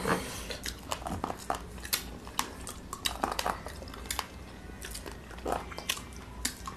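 Close-up eating sounds: irregular chewing, lip smacks and small clicks as two people eat rice and curry by hand from metal plates.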